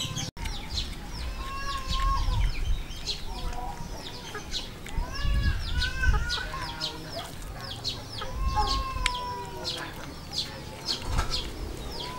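Chickens clucking, with short calls rising and falling every second or two, among many quick high chirps of birds and a low uneven rumble underneath.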